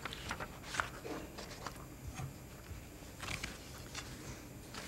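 Sheets of paper being handled and shuffled: a string of short, crisp rustles, the loudest just under a second in and another cluster about three seconds in, over a low steady hum.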